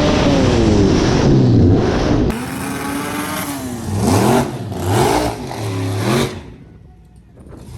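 Race car engine at full throttle on a drag-strip pass, its pitch climbing and dropping repeatedly through gear changes, then fading out about six seconds in.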